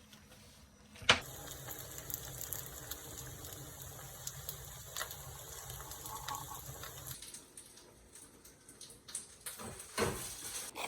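Water running from a tap for about six seconds. It starts just after a sharp click and cuts off suddenly, followed by a few light knocks and clicks.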